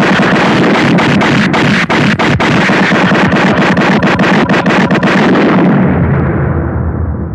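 A loud, continuous rumbling roar that fades away over the last second or two.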